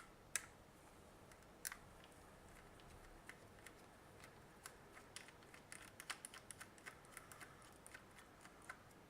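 Faint, scattered light clicks and taps of small plastic parts and a hand tool being handled as a multimeter is taken apart, with a sharper click shortly after the start and a quick flurry of clicks in the middle.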